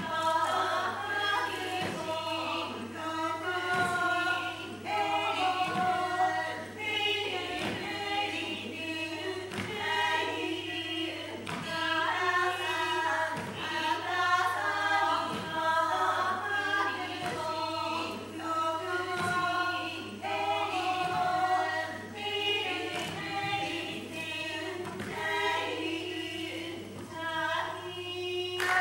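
Ainu seated group song (upopo): several voices chant short repeated phrases that overlap, unaccompanied. Soft thumps keep a steady beat under the singing.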